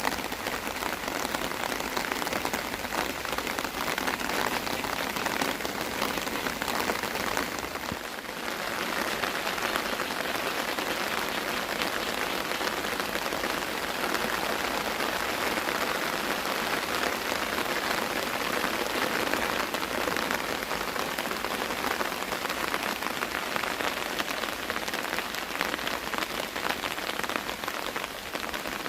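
Steady monsoon-season rain falling, an even hiss of rain that dips briefly about eight seconds in.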